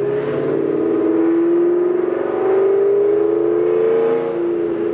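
Ford Mustang engine pulling in gear, heard from inside the cabin, its pitch rising steadily as the car accelerates, then dropping about four seconds in as the driver shifts up.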